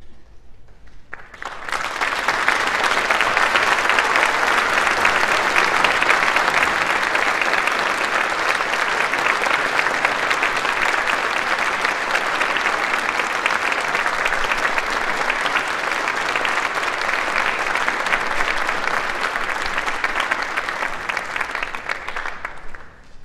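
Audience applauding, starting about a second and a half in, holding steady, and fading out near the end.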